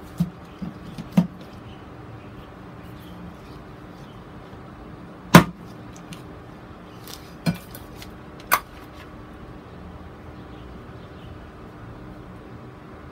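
A metal bowl knocking against a plastic grid mounting board as it is turned over and pressed down: a handful of sharp knocks, the loudest about five seconds in, over a faint steady hum.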